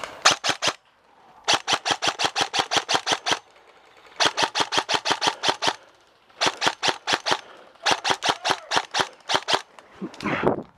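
Airsoft gun firing on full auto in repeated bursts of sharp clicking shots, about ten a second. A short burst opens, then four longer bursts of one to two seconds each follow with brief pauses between them.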